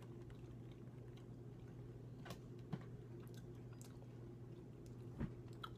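Faint chewing of jelly beans, with a few soft clicks, over a steady low hum.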